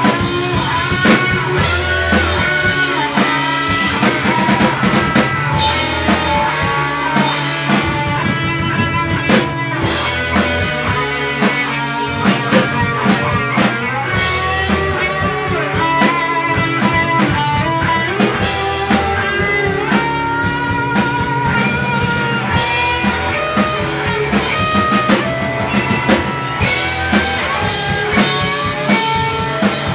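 Rock band playing an instrumental passage on electric guitars and drum kit, with a lead guitar line bending in pitch over steady drumming.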